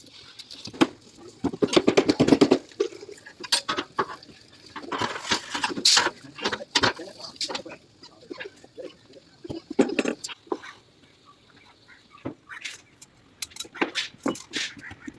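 Irregular metal clinks, knocks and scrapes of hand work on a roof slab under construction, with two longer bursts of scraping clatter.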